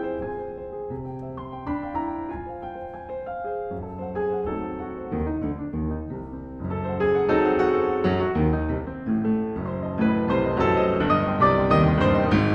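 Piano music, gentle at first, growing fuller and louder from about halfway through.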